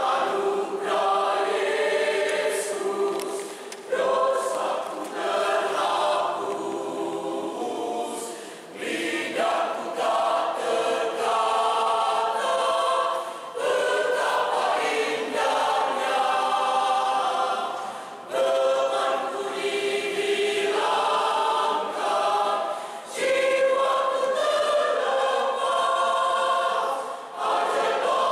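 Mixed choir of women and men singing a church choral piece together, in phrases broken by short breaths about every four to five seconds.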